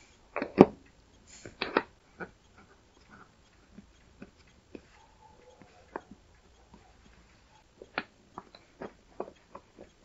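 Two 18650 lithium-ion cells handled and set into a wooden battery holder: a few sharp knocks of the cells against the wood in the first two seconds, then lighter scattered clicks and taps as they are pressed into place.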